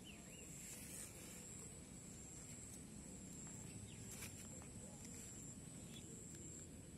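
Quiet outdoor ambience: a faint, steady high-pitched whine that breaks off now and then, over low background noise, with a few faint chirps near the start and light clicks or rustles around four seconds in.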